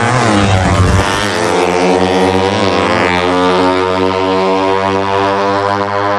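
Two drag-racing motorcycles launching and accelerating hard away from the start line. Their engines run at high revs, with the pitch climbing and dropping back several times in the first three seconds before holding high and steady.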